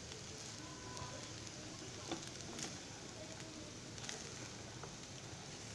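Faint sizzling of fried rice in a nonstick frying pan as it is stirred with a spatula, with a few soft taps and scrapes of the spatula against the pan.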